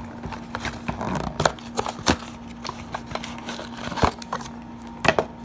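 A cardboard trading-card hanger box being opened and its packs and cards handled: irregular clicks, scrapes and rustles of paper and cardboard.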